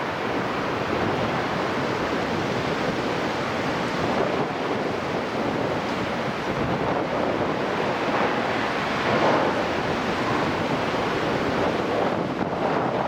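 Strong wind blowing across the microphone: a steady rushing noise that swells slightly a few times.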